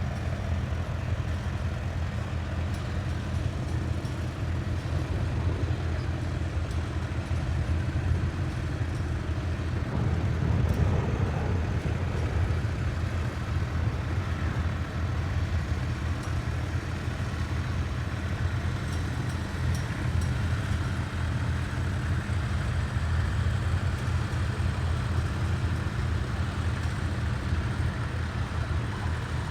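Vintage tractor engine running steadily at working speed, a constant low beat with no change in note, getting slightly louder about ten seconds in.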